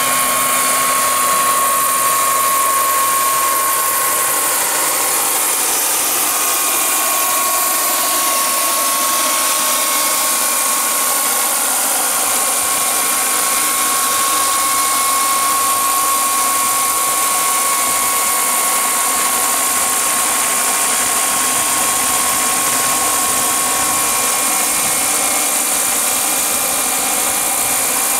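Turbine-powered scale model Sikorsky S-64 Skycrane helicopter in flight: its small gas turbine runs with a steady high whine over a hiss. A lower tone glides steadily down during the first dozen seconds.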